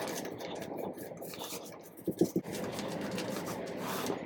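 Scraping and rubbing, with a short cluster of knocks about halfway through.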